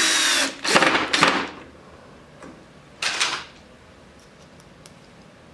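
Cordless drill driving a screw through a jar lid into a wooden spice rack: the motor runs and stops about half a second in, then two short trigger bursts just after a second, and one more short burst about three seconds in.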